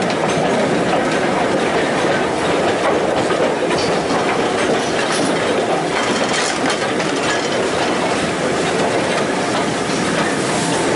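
Railway carriage running along the track, heard from on board: a steady rumble of steel wheels on the rails.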